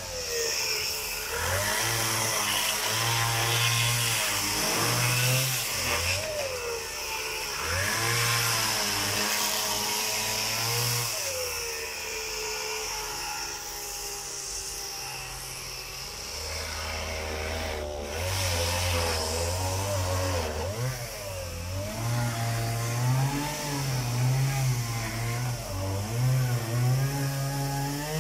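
Petrol chainsaw running at some distance, its engine speed rising and falling over and over as it cuts through wooden pallet crates.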